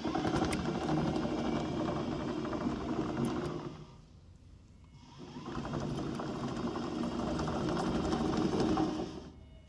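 Brushless DC gear motors of a remote-control tracked chassis driving it along under cruise control: a steady mechanical whirr for about four seconds, a stop of about a second, then running again for another four seconds.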